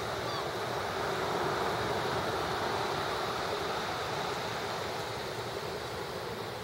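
Ocean surf breaking and washing on a beach, a steady rushing that swells about a second in and slowly eases.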